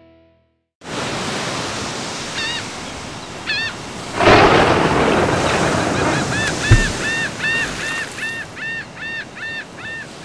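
Ocean surf washing in, with a wave breaking loudly about four seconds in, and seagulls calling over it: a few calls early on, then a long run of repeated calls, about three a second, in the last few seconds.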